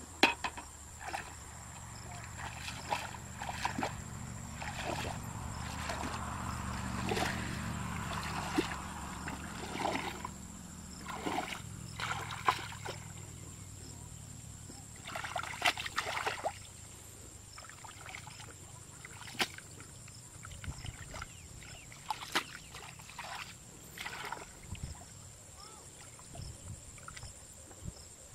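Hands splashing and sloshing in shallow muddy water in short irregular splashes, groping through the mud for fish.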